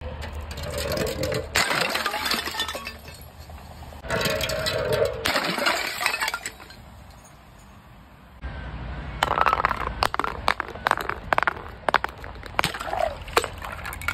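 Large soda bottles hitting concrete steps: two loud crashes, each with a splash of spilled drink, then a glass bottle clinking and cracking against the concrete in a quick run of sharp knocks.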